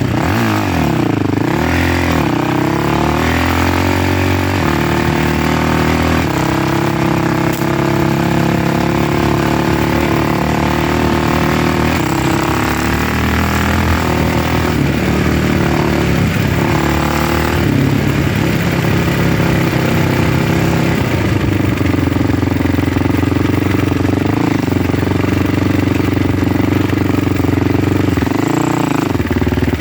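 A vehicle's engine running steadily as it is driven along, with the revs rising and falling about a second in and again near the end.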